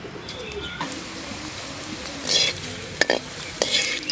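Onion pakoda fritters frying in hot oil in a metal kadai, sizzling steadily, while a perforated skimmer scrapes and clinks against the pan a few times in the second half.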